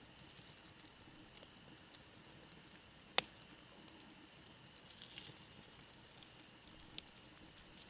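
Faint sizzle of hot cooking oil in a frying pan over a campfire, with scattered tiny crackles and two sharp clicks, the louder one about three seconds in.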